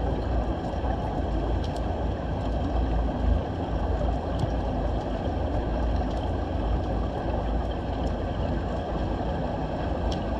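Underwater ambience picked up by a submerged camera: a steady low rumble with hiss and a few faint clicks.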